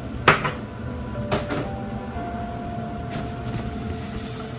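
Kitchen clatter of cookware and utensils: a sharp knock about a third of a second in, a second knock about a second and a half in, and a lighter one near three seconds.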